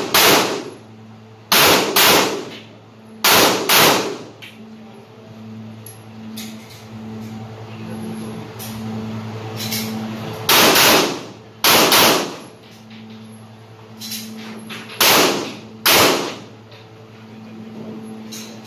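Glock 17 9mm pistol fired about nine times, mostly in quick pairs, with a pause of some six seconds in the middle; each shot echoes in the covered range. A steady low hum runs underneath.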